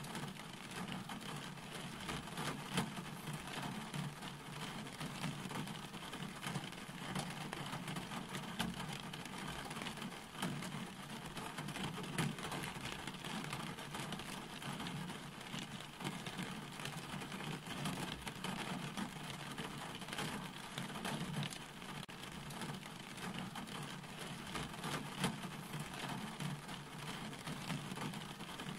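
Steady rain falling, with many individual drops pattering close by over a constant low rumble.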